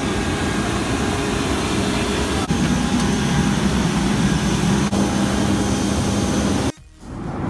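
Jet airliners at stands on an airport apron: a steady turbine whine over a low rumble. The sound changes abruptly twice where short shots are joined, and drops out briefly near the end.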